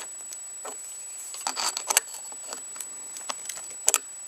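Adjustable wrench on the nut of a motorcycle lever's pivot bolt: light metal clicks and scrapes as the nut is tightened, with a few sharper ticks.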